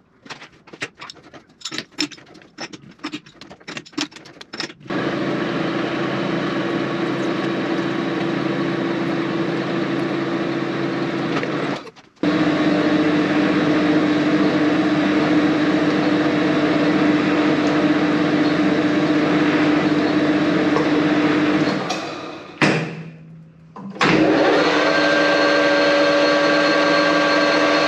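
Light knocks and taps on a steel shaft in a metal lathe's four-jaw chuck as it is set true against a dial test indicator, then the lathe running with the chuck spinning. The machine noise is steady and stops briefly twice, and after the second break a higher steady whine rides on it.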